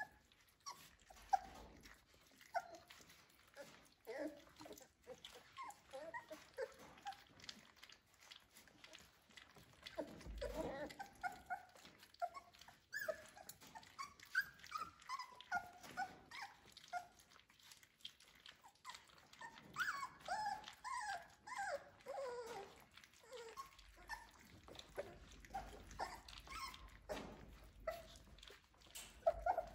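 Three-week-old Labradoodle puppies whimpering and squeaking in many short high cries, busiest around the middle and again about two-thirds through, over small clicks and smacks as they eat wet food from a steel pan.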